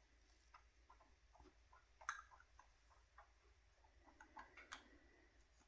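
Faint clicks of plastic pegboard pegs being pushed and fitted together by hand, with two sharper snaps about two seconds in and again nearer the end.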